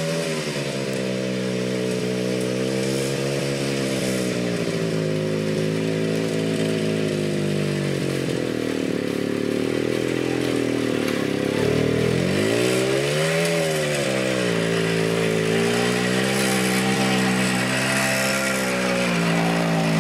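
Small Soviet two-stroke motorcycle engine revving unevenly under load as the bike labours through deep mud, its pitch wandering up and down. The revs sag low just past the middle, then pick up sharply and fall back.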